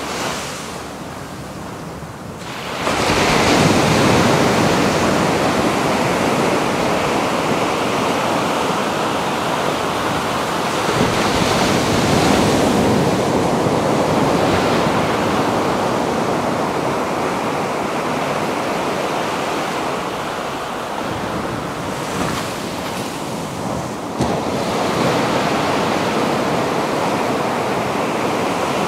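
Pacific surf breaking on a beach, the wash rising and falling in waves. After a brief lull at the start, a wave breaks about three seconds in.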